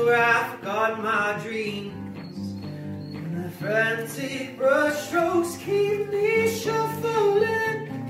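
A song on acoustic guitar with a singing voice, sung in phrases of a second or two over the guitar's steady chords.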